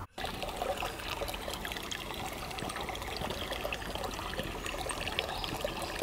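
Shallow stream trickling and babbling steadily over a pebbly bed.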